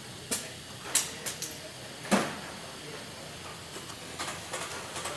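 Sharp clicks and knocks of small hard parts and tools being handled during disc brake caliper seal work: about five in the first two and a half seconds, the loudest about two seconds in, then a few fainter ones about four seconds in.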